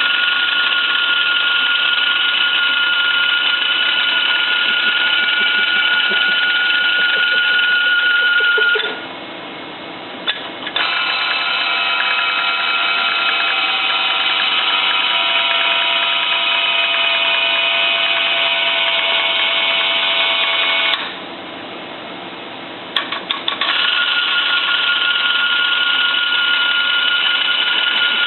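Noran Voyager X-ray detector on an electron microscope giving off an abnormal noise: a loud, steady mechanical buzz with several high whining tones. It cuts out for about two seconds twice, about a third of the way in and about three quarters in, and each time comes back with a few stuttering starts. The noise is a sign of a fault in the detector.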